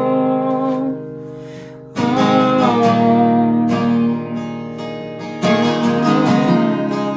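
Acoustic guitar strumming chords, each chord left to ring and fade before the next strum.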